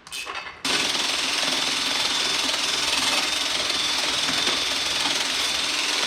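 Angle grinder with a wire wheel brushing steel. It starts abruptly a little under a second in, runs steadily, and begins to wind down at the very end.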